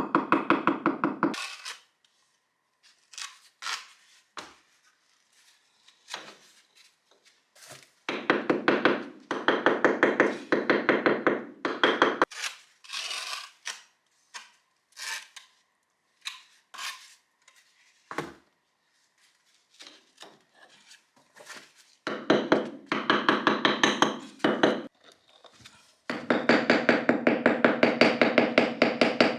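A small motorised tool running in several bursts of a few seconds each, with a fast rattling pulse. Between the bursts come scattered knocks and clinks of hard objects being handled.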